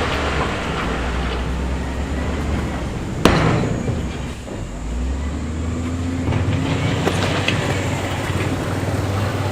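Heavy diesel construction machinery running steadily with a low drone. A single sharp metallic bang about three seconds in, such as stone or a steel bucket or truck body striking.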